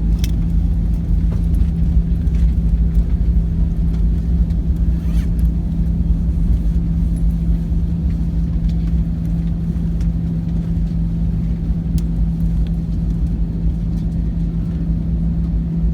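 Steady low rumble of a jet airliner's cabin from inside, with the engines and airflow making a constant drone and a steady hum, and a few faint clicks.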